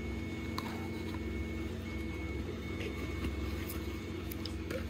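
Steady low machine hum with a thin high whine over it, with a couple of faint light taps about half a second in and near the end.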